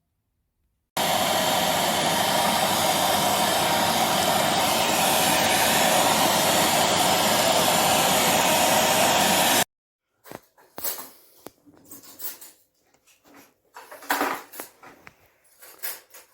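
Vytronix CYL01 bagless cylinder vacuum cleaner's 800 W motor running steadily for about nine seconds, starting and cutting off suddenly. Scattered quieter clicks and knocks follow.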